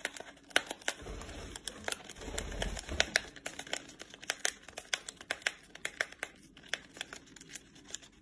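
A parrot biting and tearing open a tea packet wrapper: many small, irregular crinkling crackles, with some low handling bumps about a second in.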